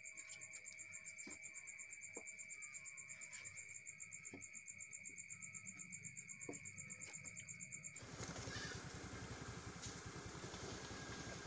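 High, steady insect buzzing with a fast, even pulsing over it. About eight seconds in it stops abruptly and gives way to a slightly louder, even rushing outdoor background with no clear call in it.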